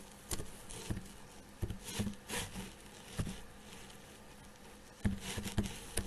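Keystrokes on a computer keyboard: scattered single clicks with pauses between them, then a quicker run of several clicks near the end.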